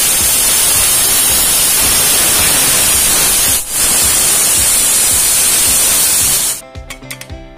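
Pressure cooker venting steam through its weighted valve, held open with a ladle handle to release the pressure by hand: a loud, steady hiss that breaks briefly about halfway through and cuts off suddenly near the end.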